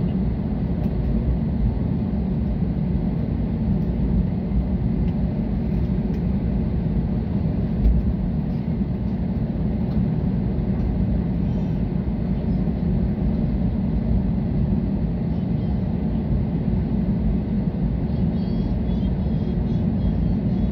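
Steady low rumble inside the cabin of an Airbus A320-214 taxiing, its CFM56 engines running at low thrust.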